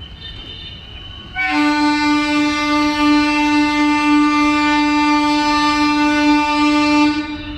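Train horn sounding one long, steady, loud blast of about five and a half seconds, starting about a second and a half in. Under it is the low rumble of passenger coaches rolling slowly past.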